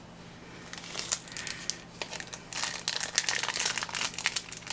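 Foil wrapper of a trading-card booster pack crinkling as it is handled, a quick irregular run of crackles that starts about a second in and grows busier.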